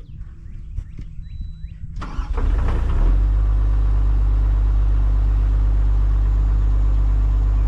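Kobelco SK250 LC excavator's diesel engine starting about two seconds in, cranking briefly, then catching and settling into a loud, steady idle. A few faint knocks come before it.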